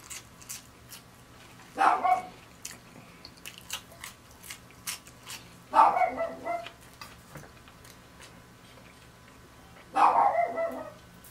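A dog barking in three short bouts, about two, six and ten seconds in, over small clicks of chewing.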